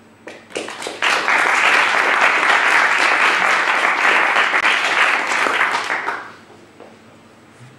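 Audience applauding: a few scattered claps, then dense applause for about five seconds that dies away.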